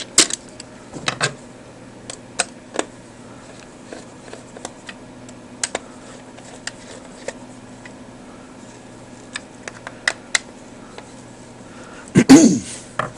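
Scattered small plastic clicks and ticks as the two halves of a Beckman HD-153 multimeter's plastic case are pressed together and its case screws are turned in with a screwdriver. A louder knock comes near the end.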